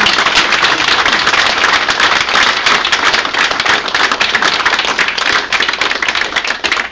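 A room full of people applauding, loud and steady, beginning to thin out near the end.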